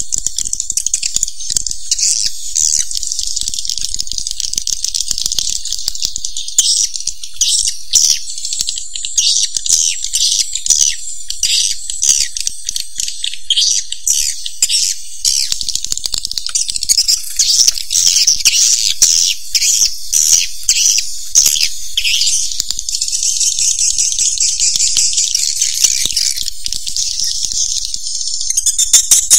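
Swiftlet calls: a dense, continuous high-pitched twittering chatter of rapid chirps and clicks, the kind of sound played in swiftlet houses to lure swiftlets in.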